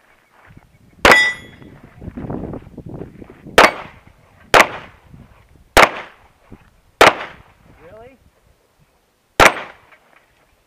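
Six handgun shots, unevenly spaced about one to two and a half seconds apart, the first with a brief metallic ring.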